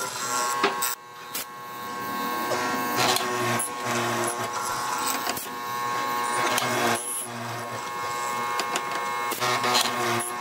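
Electric vertical drilling machine running with a steady whine as its bit bores into a hardwood door-frame beam, with a low throb that swells and fades every second or two and several sharp knocks.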